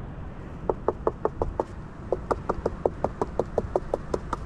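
Gloved knuckles rapping on the side of a painted wooden beehive: two quick runs of knocks, about five a second, with a short pause between them and a few more near the end. This is done to rouse a winter colony and check that the bees are alive.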